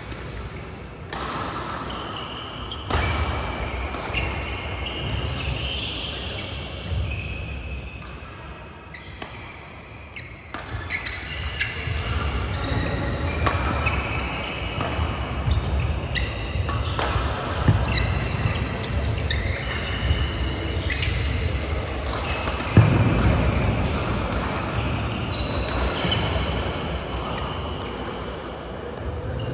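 Badminton rackets striking shuttlecocks and shoes squeaking on the court mats, from several games at once, echoing in a large hall. The hits come at irregular moments, one sharp hit about three-quarters of the way through being the loudest.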